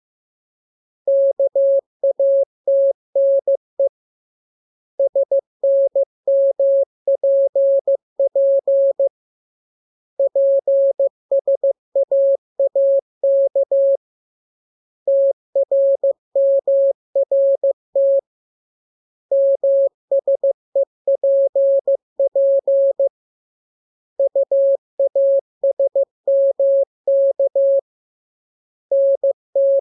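Morse code practice tone: a single steady beep keyed in dots and dashes, sent in groups of characters with a pause of about a second between groups, drilling the letters K, M, U, R, E, S, N, A, P and T.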